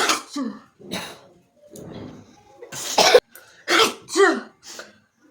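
A woman coughing and clearing her throat in a run of about seven short coughs, the loudest about three seconds in. The coughing is set off by the sharp fumes of burnt chilli.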